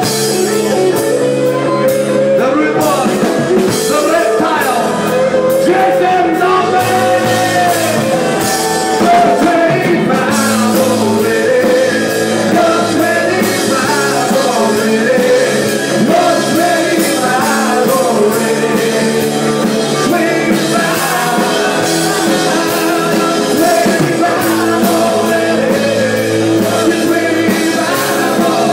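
Live rock band playing loud: a singer on microphone over electric guitars, with the full band sound running continuously.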